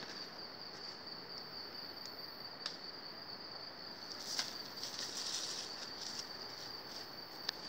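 Rainforest insects droning steadily on one high pitch, with a few light clicks and a brief rustle in the leaf litter about four to five seconds in.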